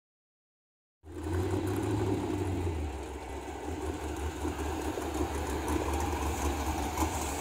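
Sand rail dune buggy's engine running steadily with a deep low rumble as the buggy rolls slowly across the sand, starting about a second in.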